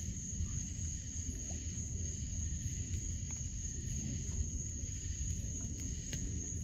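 Outdoor night ambience: a steady low rumble with a constant high-pitched whine over it and a few faint ticks.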